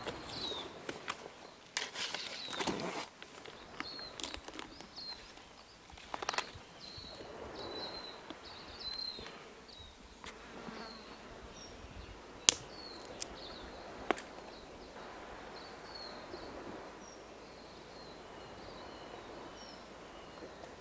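Hands rustling and snapping twigs and flax cord while setting a snare on a log: scattered rustles and light clicks, with a sharp click about halfway through and another a couple of seconds later. Faint short high chirps repeat in the background throughout.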